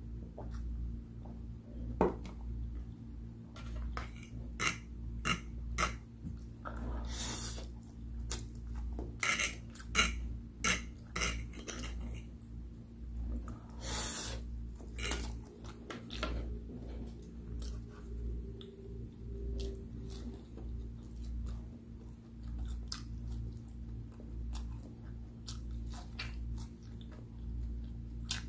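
Metal fork clinking and scraping against a plate as instant noodles are eaten, with chewing between the clinks. The clinks are thickest in the first half, over a steady low hum.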